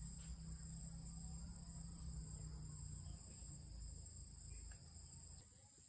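Faint, steady high-pitched insect chorus, crickets chirring, over a low rumble that drops away near the end.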